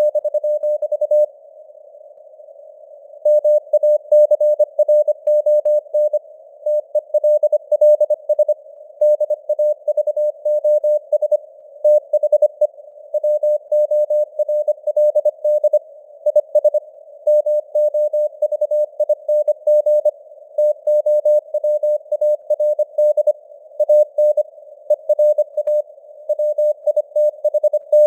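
Morse code sent at 25 words per minute: a single steady beep keyed on and off in quick dots and dashes over a narrow band of simulated radio hiss, with a pause of about two seconds near the start.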